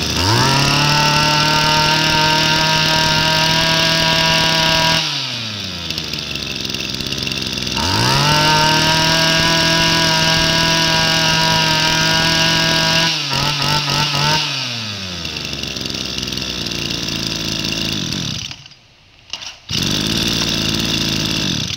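Kioritz (Echo) 24cc two-stroke brush cutter engine revved to full throttle and held for about five seconds, then dropped to idle. It is revved and held again, given a few quick throttle blips, and settles back to idle. Near the end the sound drops away for about a second, then the engine is heard running again.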